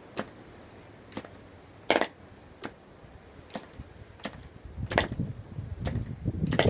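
Frog 500 model aircraft engine, set up to run on a glow plug instead of its spark ignition, giving single sharp pops roughly once a second as it is turned over. In the last two seconds the pops come faster and louder over a rough low rumble: the engine firing more often as it tries to catch.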